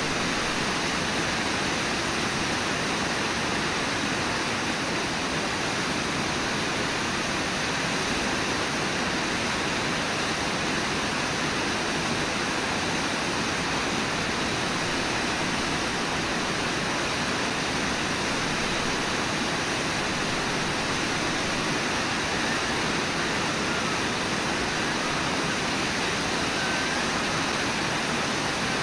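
Steady rush of river whitewater tumbling around the bear, an even noise with no breaks or distinct splashes.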